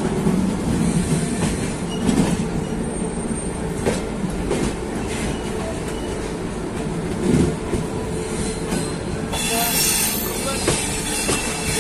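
Passenger express train running on the rails, heard from aboard: a steady rumble and rattle with occasional wheel knocks, and a high wheel squeal setting in near the end.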